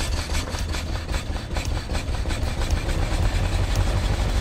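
Ford V8 engine of an Asplundh wood chipper running steadily at idle on a newly fitted carburetor.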